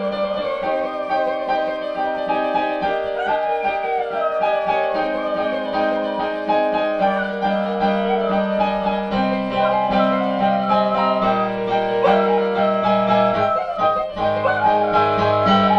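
Piano playing a slow piece of held chords while a dog howls along with it, its long wavering howls sliding up and down in pitch above the piano notes.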